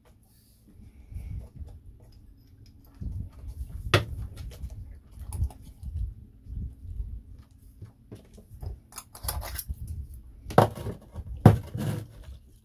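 Small metal epoxy tins being handled: a screwdriver clicks and scrapes at a tin's lid. Near the end come two sharp knocks as the tins are set down on a wooden shelf.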